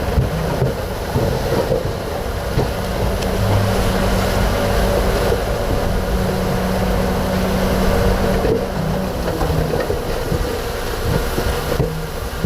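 Komatsu D58P crawler bulldozer's diesel engine running steadily under load, with a rough low rumble.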